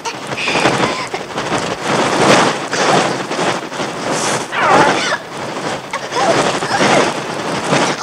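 A flock of birds: a dense rush of many flapping wings with shrill, wavering cries rising and falling in loudness.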